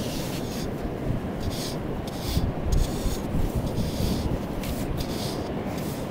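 A stick scraping through wet beach sand in a series of short strokes, over a steady low rumble.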